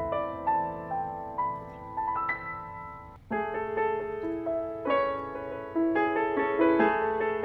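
Background piano music: single struck notes and chords in a calm melody. It dips almost to nothing about three seconds in, then the notes pick up again.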